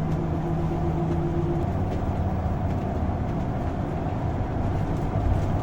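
Class A motorhome driving in very strong wind, heard from inside the cab: a steady low drone of engine, road and wind noise, with a steady hum that drops away about a second and a half in.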